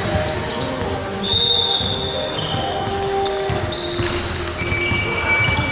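Basketball game on a hardwood court in a large echoing hall: the ball bouncing, sneakers squeaking in short high-pitched chirps, and players' indistinct voices.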